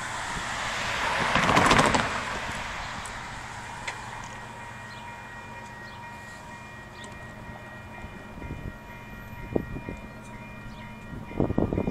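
Distant horn of a Canadian Pacific ES44AC locomotive, a Nathan K5HL five-chime, holding a steady multi-note chord from about four seconds in as the train approaches. A loud whoosh swells and fades in the first two seconds, and a low rumble from the oncoming train builds near the end.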